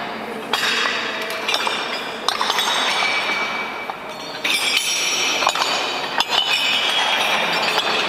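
Heavy iron discs cut into faces, piled loose on a floor, clanking and clinking against one another as they are walked over. The metallic jangle runs without a break, with sharp clanks and a high ringing through it.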